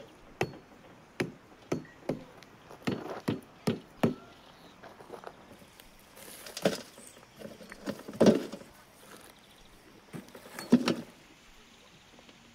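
A hatchet striking the hard, fire-baked clay crust sealed around a whole lamb. First comes a quick run of about nine sharp knocks, then three louder, longer cracking blows spread over the following seconds as the shell splits open.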